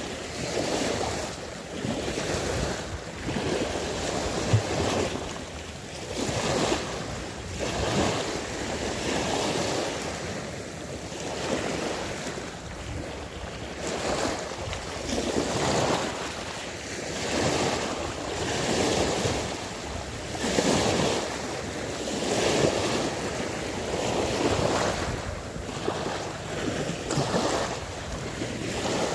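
Sea waves washing in repeated surges every second or two, with wind buffeting the microphone.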